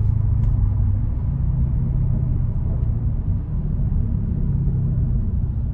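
Mercedes SL550's twin-turbo V8 with exhaust cutouts, a steady low drone from engine and exhaust while driving. The pitch shifts slightly about a second in.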